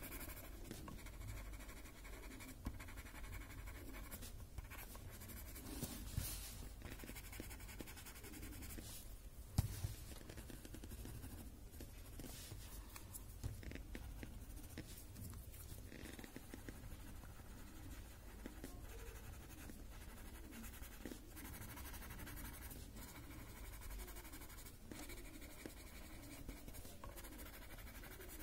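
Faint scratching and rubbing of a graphite pencil and a paper blending stump on a paper drawing tile, shading in short strokes, with a few light taps; the sharpest tap comes about ten seconds in.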